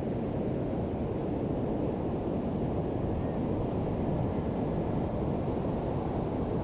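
Ocean surf and wind making a steady low rush, with no single wave standing out.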